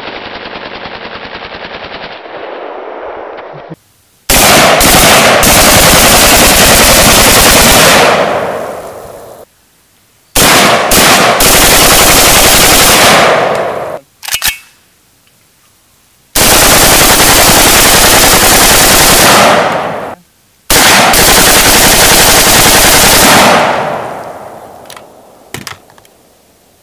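AKS-74U carbine (5.45×39 mm) firing full auto. First comes a quieter, muffled stretch of continuous fire. Then come four long bursts of about three to four seconds each, very loud, separated by short pauses, each dying away over a second or so.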